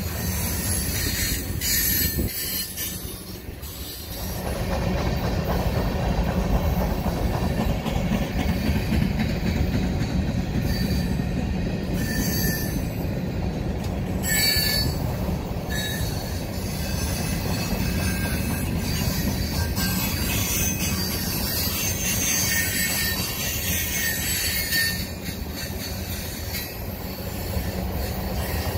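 Freight cars of a Union Pacific manifest train rolling past on the rails, a steady low rumble of wheels on track. High squeals from the wheels come and go, sharpest a little under halfway through.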